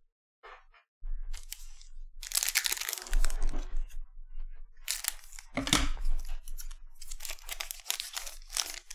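Foil trading-card pack wrapper (2020-21 Panini Revolution basketball) being handled and torn open. It makes a series of crinkling, tearing bursts that start about a second in.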